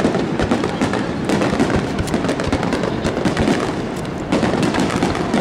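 Aerial firework shells bursting in a rapid barrage, booms and crackles overlapping without a pause, easing briefly about four seconds in before picking up again.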